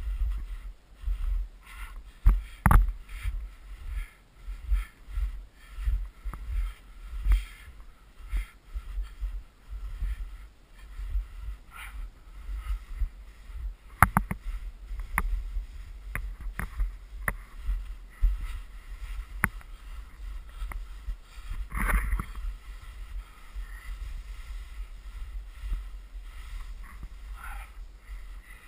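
Footsteps in snow at a steady walking pace, picked up by a body-worn action camera as repeated low thuds and soft swishing, with a few sharp clicks along the way, the loudest about two-thirds of the way through.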